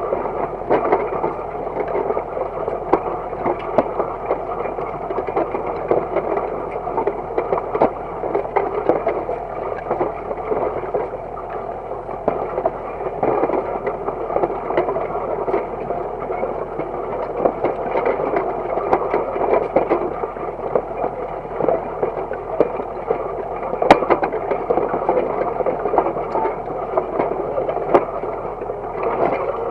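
Disc harrow towed by a Universal DT445 diesel tractor, its steel discs cutting and turning clods of soil: a steady grinding clatter full of small knocks, with a sharper knock about three-quarters of the way through and the tractor's engine running underneath.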